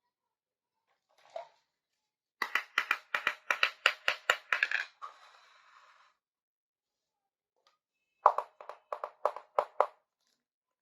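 Small hard toy kitchen pieces being handled, clicking and tapping in two quick runs of about five sharp clicks a second, one a few seconds in and a shorter one near the end.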